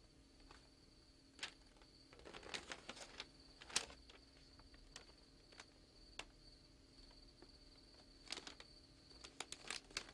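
Near silence: a faint steady high whine and low hum, with scattered soft clicks and rustles of magazine pages being handled and turned, clustered about two seconds in and again near the end.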